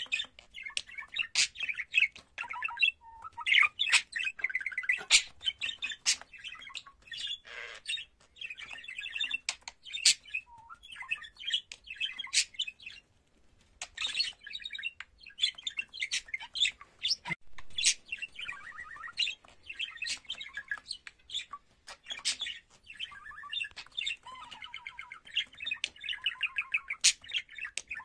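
Male budgerigar warbling: a long, busy run of chirps, chatter and clicks, with short breaks about 13 and 22 seconds in.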